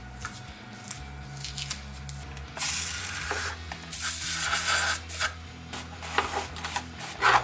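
Hand pressure sprayer squirting a jet of liquid onto a sandblasted brake caliper to rinse off leftover sand, in hissing spurts: two longer sprays of about a second each, then shorter ones near the end.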